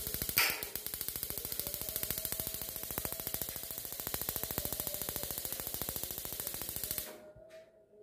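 Electronic pulse igniter of a Bellano gas water heater sparking in a rapid, even train of clicks, more than ten a second, that stops abruptly about seven seconds in. The igniter is sparking again after the repair.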